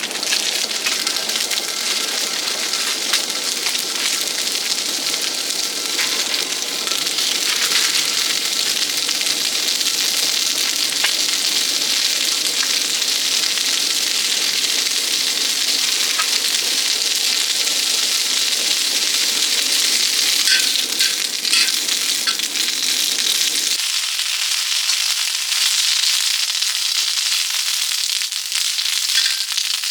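Food sizzling and frying in a pan, a steady hiss with small pops and crackles; a lower rumble under it stops suddenly near the end.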